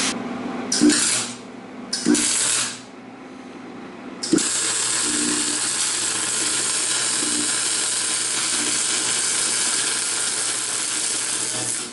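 MIG welder arc welding a butt joint on a race car frame rail: two short bursts, then from about four seconds in a long, steady crackling sizzle that stops just before the end.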